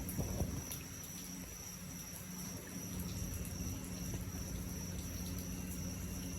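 Steady night chorus of crickets or katydids, a thin high continuous trill, over a low steady hum. A faint low rumble comes in the first second, typical of distant thunder.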